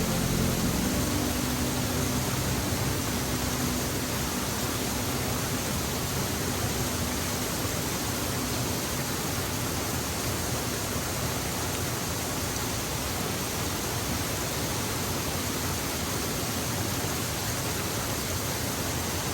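Water of a small waterfall pouring and splashing down over rocks: a steady rushing noise. A low hum fades out in the first second.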